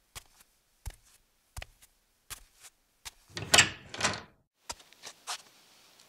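A staged sound-effects sequence: sharp taps about every three-quarters of a second, then a door worked with two loud scraping rushes about three and a half and four seconds in, followed by a few more taps near the end.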